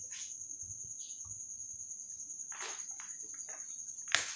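A cricket chirping in a steady, high-pitched pulsing trill. Soft rustles sound during it, and a single sharp click comes near the end.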